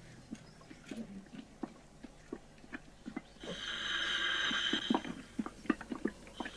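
Film sound effects of a slimy alien egg opening: scattered wet squelches and clicks. About three and a half seconds in, a breathy hiss swells up and holds for over a second.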